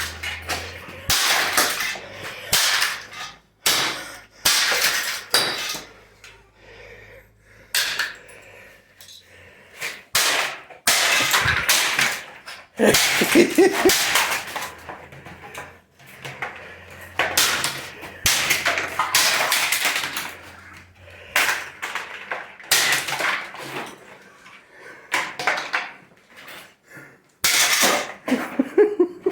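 A vacuum cleaner being smashed apart: a string of loud, irregular blows and crashes, a second or two apart, with parts cracking and breaking.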